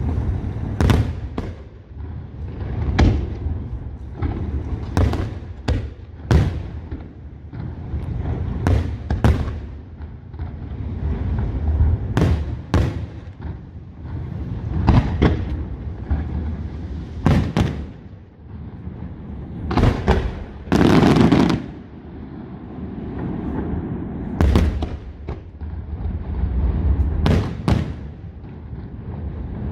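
Aerial fireworks display: a steady run of shell bursts, sharp bangs about one or two a second over a continuous low rumble and crackle, with a louder, longer burst of bangs about two-thirds of the way through.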